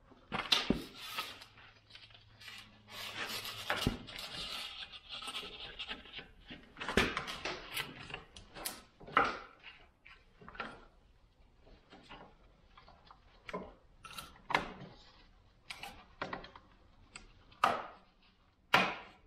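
Scraping, rubbing and sharp knocks as a homemade carbide cover is trimmed and fitted onto a snowmobile ski's runner, with a longer stretch of scraping in the first few seconds.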